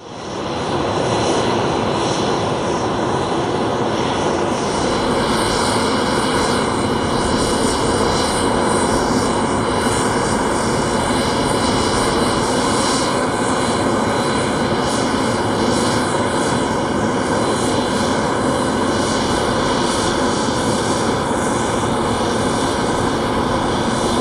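Aircraft engine running steadily at close range: a loud, unbroken rushing noise with a few steady high tones.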